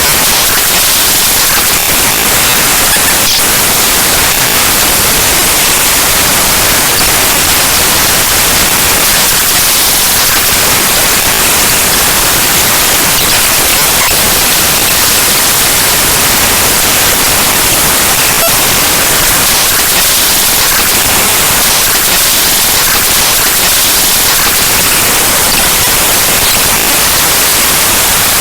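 Loud, steady, harsh static: the binary bytes of the Windows explorer.exe program file played back as raw audio. It is hissy, with most of its energy in the high end, and holds unchanged throughout.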